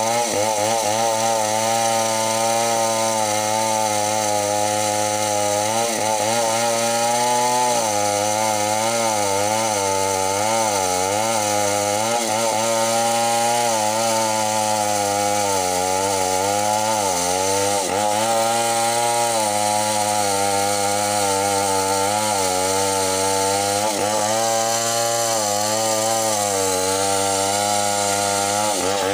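Two-stroke chainsaw running at full throttle and cutting lengthwise along a bengkirai hardwood plank. The engine pitch repeatedly dips and recovers as the chain is loaded in the cut.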